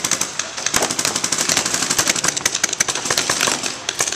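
Paintball markers firing rapid strings of shots, many sharp pops a second, with bursts overlapping.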